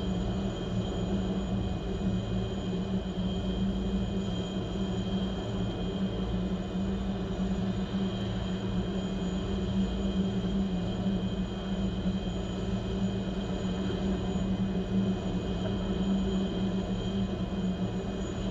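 Rescue helicopter running on the ground, engines and rotors turning steadily without winding down: a constant low drone with a steady high turbine whine above it, heard through a window pane.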